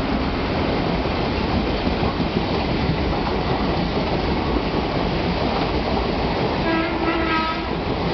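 Express passenger train running through a station without stopping: a steady, loud rumble and clatter of the coaches on the track. A brief high-pitched tone sounds about seven seconds in.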